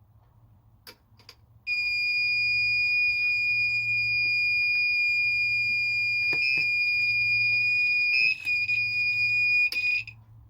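A continuous high-pitched electronic alarm tone, one steady pitch held for about eight seconds, which starts abruptly after a few light clicks and cuts off suddenly near the end.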